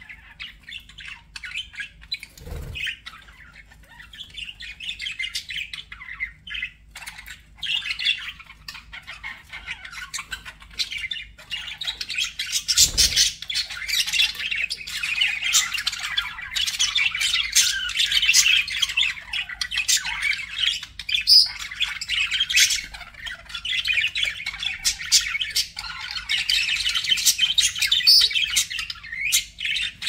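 Budgerigars chattering and warbling, a rapid mix of squawks and chirps from several birds, thinner at first and much busier from about a third of the way in. Two dull low thumps come through, one early and one near the middle.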